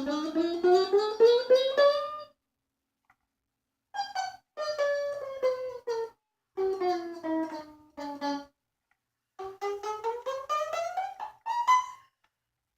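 Plucked string instrument picked in rapid repeated notes while the pitch slides along the string, in four runs: up, down, down and up again, with short pauses between. It is played as a scurrying sound effect.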